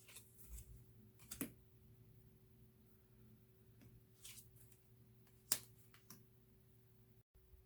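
Tarot cards being handled and flipped through: scattered soft clicks and taps of card on card, the sharpest about five and a half seconds in, over a faint steady hum.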